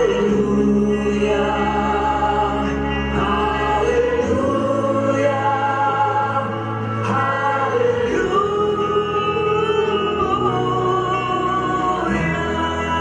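Choral music: voices holding long, sustained chords over a low bass, the chord changing about every four seconds.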